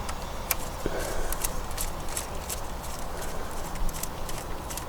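Irregular light clicks and taps of a hand wrench working the camshaft bearing-cap bolts loose on a Skoda Octavia 1.8 turbo engine, a few clicks each second.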